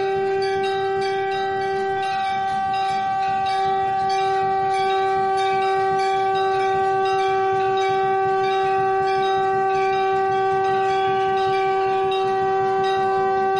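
Conch shell (shankh) blown in one long, unwavering note, with a light rhythmic ringing above it.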